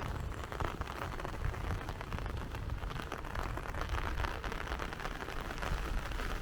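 Steady rain falling, a dense patter of small drop ticks over a low rumble.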